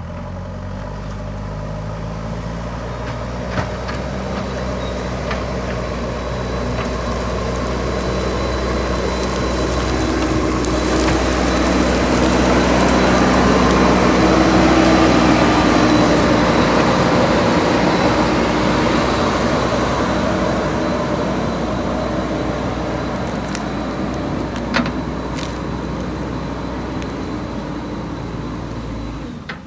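Diesel engine of a JCB 3DX backhoe loader running steadily, growing louder toward the middle and easing off again, with a few faint clicks.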